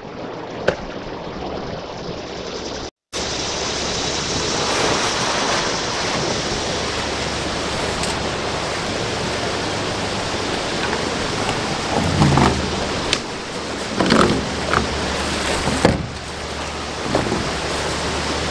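Steady rushing of creek water, with a few brief rustles and knocks about two-thirds of the way through as a sewer hose is handled.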